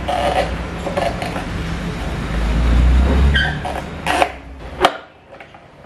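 Sharp clicks of plastic scooter body panels being handled and worked loose over a low rumble, which swells in the middle and cuts off suddenly about five seconds in.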